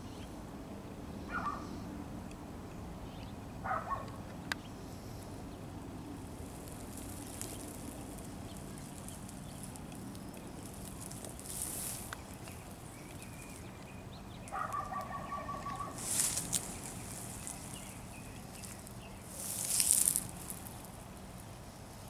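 Outdoor ambience: a steady low hum, a few short bird calls, one a rapid chattering about fifteen seconds in, and several brief high hissing swells, the loudest near the end.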